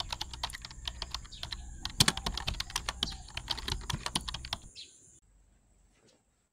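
Keyboard typing sound effect: a quick, uneven run of key clicks over a steady high hiss, stopping about five seconds in.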